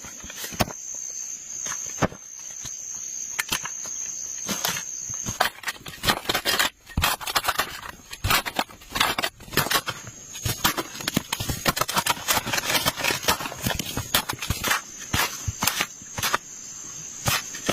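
Insects trilling steadily in one high tone, over a run of sharp knocks, crackles and scrapes that grows much denser about six seconds in.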